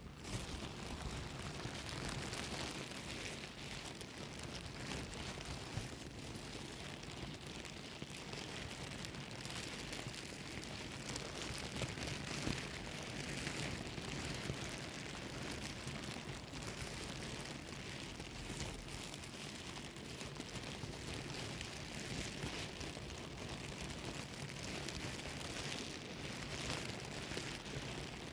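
A plastic bag being rustled and crumpled without a break, a dense crackling crinkle.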